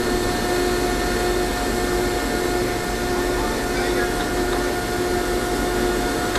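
Manure baler's machinery running steadily: a constant whirring hum with a steady droning tone.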